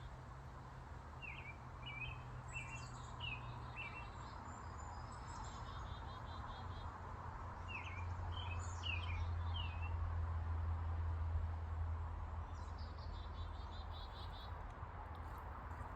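Small songbirds singing: two bursts of short rising chirps and fast high trills. Behind them is a steady low rumble of road traffic that swells in the middle and fades again.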